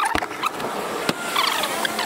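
Fast-forwarded time-lapse soundtrack: short, squeaky, chirp-like bits of sped-up sound over a steady hiss, with a couple of sharp clicks.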